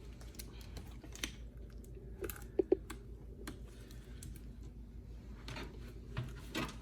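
Irregular light plastic clicks and taps as computer memory modules are handled and fitted into the motherboard, with a sharper double click about two and a half seconds in. A low steady hum underneath.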